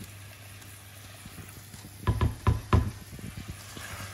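A wooden spoon knocking against a stainless steel sauté pan about four times in quick succession, a little over two seconds in, as fish bones, onions and herbs are stirred. A low steady hum sits underneath.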